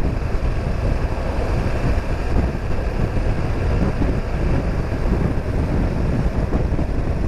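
Steady wind rush over the microphone mixed with the low running noise of a BMW R 1200 GS motorcycle under way.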